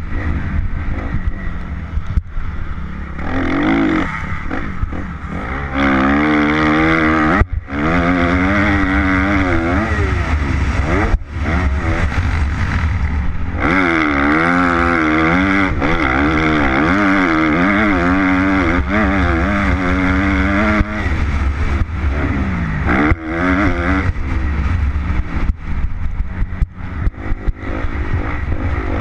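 2013 Kawasaki KX250F four-stroke single-cylinder motocross bike engine heard from on board while being ridden, revving up and down with throttle and gear changes. The engine briefly drops off twice early on, and wind rushes over the microphone.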